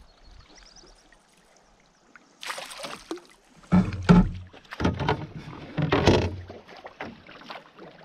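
Splashing of a northern pike thrashing at the surface beside a canoe as it is landed: quiet at first, then a sharp splash about two and a half seconds in and a run of heavier splashes around four, five and six seconds in.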